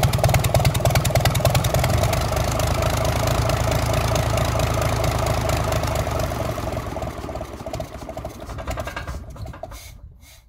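Gardner 6LXB six-cylinder diesel engine running steadily, then shut off about six seconds in, its firing slowing and fading away to a stop near the end.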